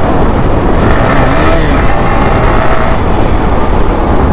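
Yamaha R15 motorcycle riding at road speed: its engine running under a heavy, steady rush of wind buffeting the microphone.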